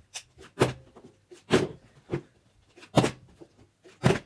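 A partly filled plastic water bottle being flipped and knocking down on a tabletop: about six sharp knocks in irregular succession, roughly half a second to a second apart.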